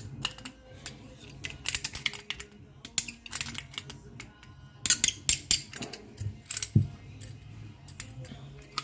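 Clicks and clatter of metal plumbing tools and a short copper pipe being handled and set down, in irregular bursts of sharp knocks.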